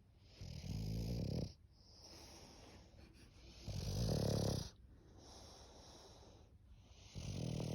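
English bulldog snoring in its sleep: three loud, low snores about three seconds apart, with a softer hissing breath between each.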